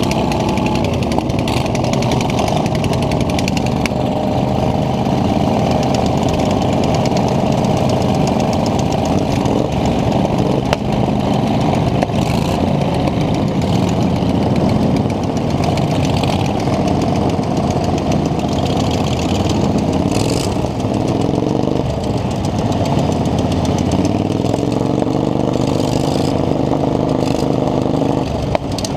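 Racing lawn mower's small engine running loud and steady, its pitch rising as it revs up a couple of times in the second half.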